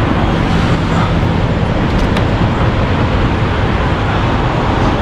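Truck driving: a steady rumble of engine and road noise.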